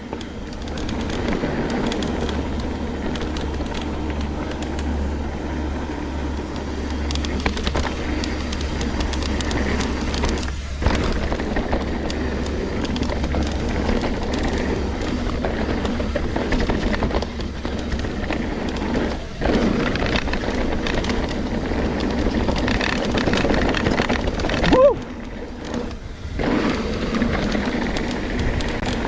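Trek Slash 9.8 full-suspension mountain bike descending a dirt trail at speed: continuous rush of wind and rumbling, rattling tyre and drivetrain noise, dropping out briefly a few times, with a short rising tone about 25 seconds in.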